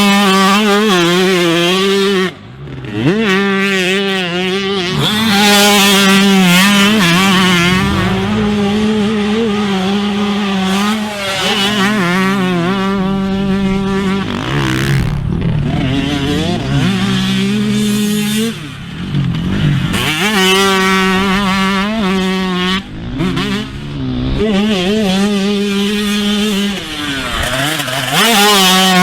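Two-stroke motocross motorcycle engine revving high, its pitch wavering and stepping as the throttle is worked, with a few brief throttle cuts.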